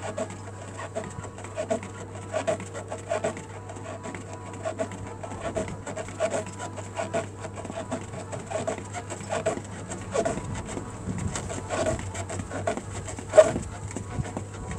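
A person breathing hard in quick, rhythmic exhales, about two a second, while doing mountain climbers, with light taps and scuffs of the feet on the exercise mat; one louder exhale near the end.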